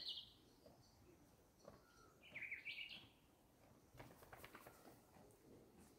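Faint bird chirps, a short burst of calls about two to three seconds in, over quiet outdoor background; a few faint clicks follow about four seconds in.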